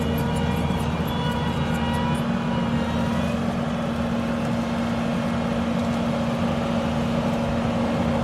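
Skid steer loader's engine running at a steady, unchanging speed, a constant hum.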